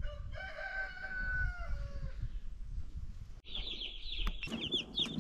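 A rooster crows once, one long call of about two seconds. After an abrupt cut, a brood of baby chicks peeps, many high chirps a second overlapping without pause.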